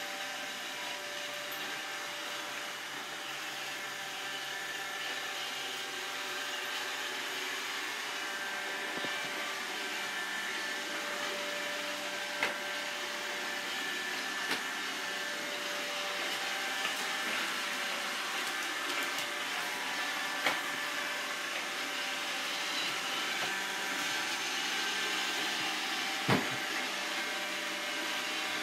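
iRobot Roomba 770 robot vacuum running, a steady whirring hum with a whine of several steady tones. A few short, sharp knocks stand out in the second half.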